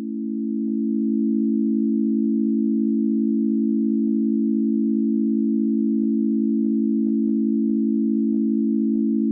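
ECI 600 electronic siren sounding one steady, low single tone rather than a double tone. It swells up over the first second, then holds an even pitch and level.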